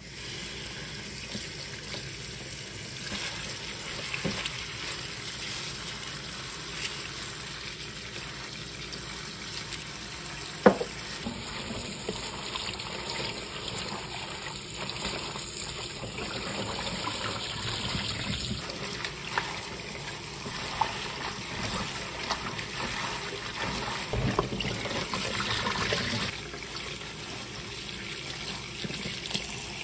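Kitchen tap running steadily onto bomdong cabbage leaves in a steel bowl in a stainless steel sink, splashing as hands rinse and rub the leaves under the stream. A single sharp knock about ten seconds in.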